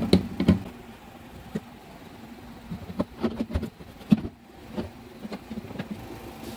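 Scattered clicks and knocks of a screwdriver tightening a solar panel wire into a charge controller's screw terminal, and of the panel cable being handled, loudest near the start and again about three to four seconds in.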